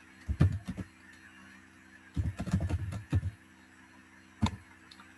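Typing on a computer keyboard: a few quick keystrokes just after the start, a longer run of keystrokes in the middle, and a single key tap near the end, over a faint steady hum.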